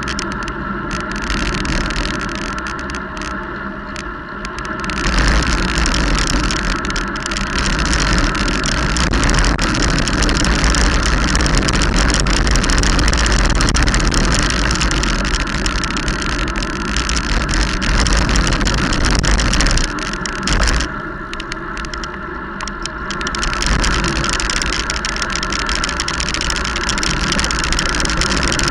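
Wind rushing and buffeting over a microphone moving fast downhill, with tyre noise on a wet road. It eases for a few seconds twice: near the start and about two-thirds of the way through.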